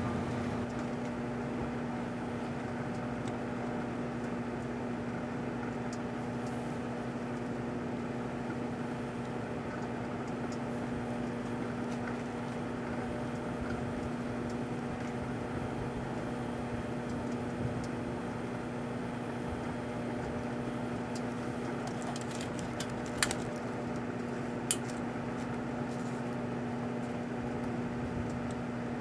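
Proctor-Silex microwave oven running with a steady hum while heating a plastic bottle of shampoo, with two sharp clicks near the end.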